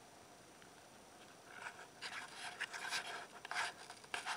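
Kayak paddle strokes splashing and dripping water, heard as irregular scratchy spatters that begin about a second and a half in after a short quiet spell.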